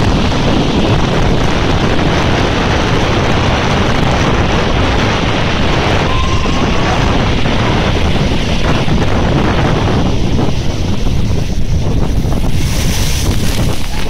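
Heavy storm surf breaking and washing up a shingle beach, heard as a loud, steady rush under strong wind buffeting the microphone. A brighter hiss of washing foam rises near the end.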